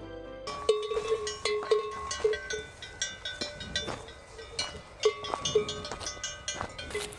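Cattle bells clanking irregularly, many overlapping ringing strikes, starting about half a second in.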